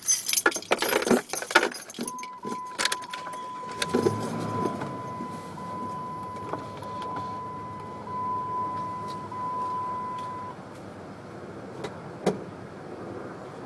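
Car keys jangling and rattling at the ignition, then a steady high electronic warning tone that holds for about eight seconds with a few short breaks. About four seconds in, the car's engine turns over and settles into a steady idle under the tone. A single sharp knock comes near the end.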